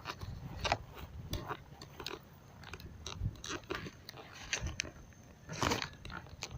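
Irregular crunches and clicks close to the microphone, with a louder crunch a little after five seconds in.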